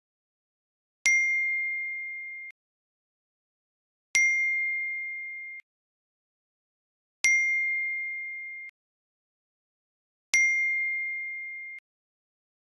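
Alarm ringtone: a single bell-like ding struck four times, about every three seconds. Each ding rings out for about a second and a half and then cuts off abruptly.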